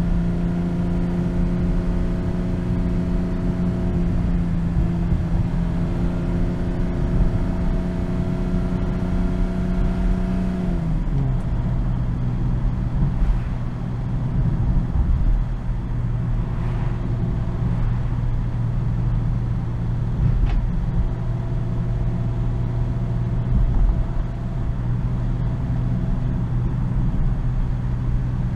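BMW M240i's 3.0-litre turbocharged inline-six (B58) running at steady part-throttle revs, its engine note dropping smoothly to a lower steady pitch about eleven seconds in, with a low road and tyre rumble underneath.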